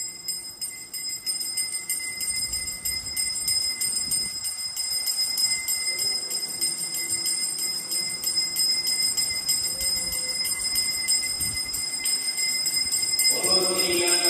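Hindu temple bell rung rapidly and without pause during aarti, a bright metallic ringing. Near the end a louder held musical tone joins in.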